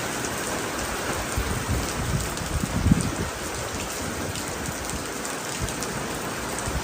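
Heavy rain falling steadily, with gusts of wind buffeting the microphone in low rumbles about two to three seconds in.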